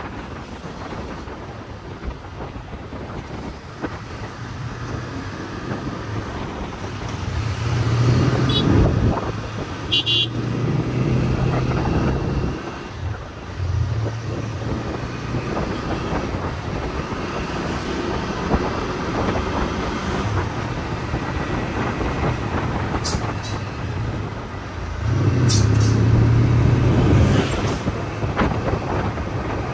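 A motor vehicle's engine running and road noise while riding along a road, the engine hum swelling louder about a quarter of the way in and again near the end. A few short horn toots are heard in the traffic.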